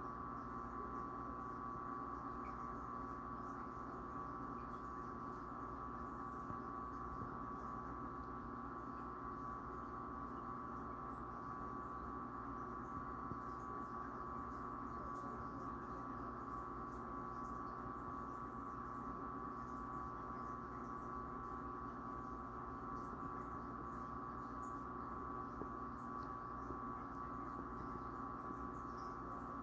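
Faint steady hum with a constant mid-pitched tone and a low drone underneath, unchanging throughout.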